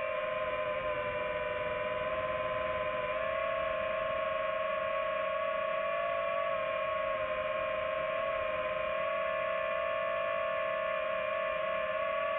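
DJI FPV drone's motors and propellers whining steadily in flight, the pitch nearly level, rising slightly about three seconds in with the throttle.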